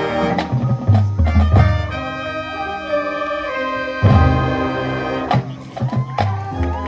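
Marching band playing: the brass section holds full chords over heavy low drum hits and sharp percussion strikes.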